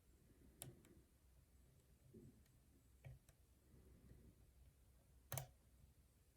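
Lock pick working the pins of a challenge lock: a few scattered faint metallic clicks, with one sharper click about five seconds in.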